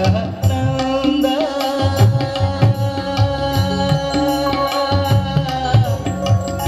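Live devotional song in raga Revati: a male singer's voice over keyboard, with the tabla playing a steady rhythmic pattern throughout.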